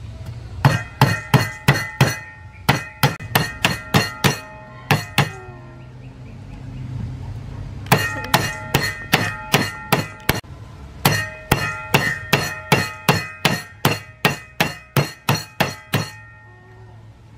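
A steel kitchen knife blade strikes a grilled banana again and again on a wooden chopping board, flattening it. The hits come about three a second in four runs, with a pause near the middle, and each knock has a short metallic ring from the blade.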